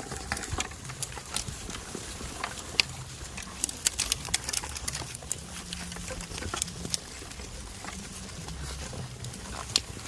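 Goats moving about: scattered sharp clicks and knocks over a low, uneven rumble.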